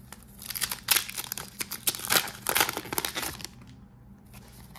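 Foil booster pack wrapper being torn open and crinkled, a dense run of crackling rips lasting about three seconds before it goes quiet.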